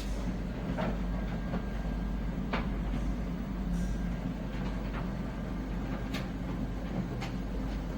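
Samsung heat-pump tumble dryer running: a steady low hum with light clicks at uneven intervals, as from the turning drum.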